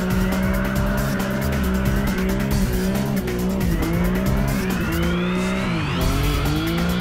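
BMW E46 M3's S54 inline-six revving hard with tyres squealing as the car drifts in circles, with music playing over it. About four seconds in, the engine rises steadily in pitch for two seconds, then drops sharply.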